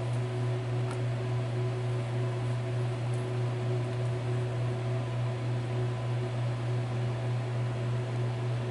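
Steady low machine hum with a hiss over it, like a fan running, unchanged throughout; a couple of faint ticks about one and three seconds in.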